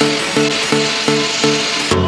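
Background music with a steady repeating beat, a pitched pattern about every third of a second over a steady hiss.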